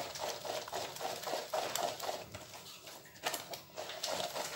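Silicone spatula pushing and scraping blended fruit pulp through a plastic sieve: a quick, rhythmic run of wet squishing strokes, several a second, with a couple of sharper taps about three seconds in.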